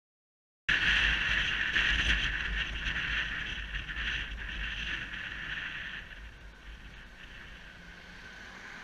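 Wind rushing over the camera with a Yamaha YBR125's single-cylinder engine running while riding. The sound cuts in suddenly about a second in and quietens from about six seconds in as the motorcycle slows for red lights.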